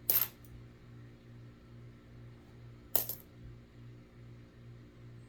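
Two sharp metallic clinks about three seconds apart: pennies (Lincoln cents) set down or dropped one at a time onto a hard surface, each with a brief bright ring.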